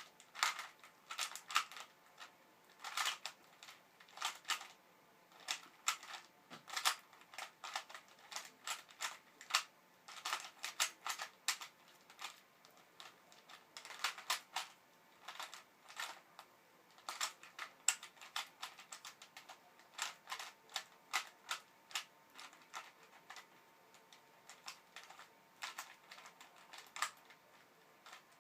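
Rubik's Cube being turned rapidly in a speedsolve: quick plastic clicks and clacks of the layers snapping round, several a second in irregular runs.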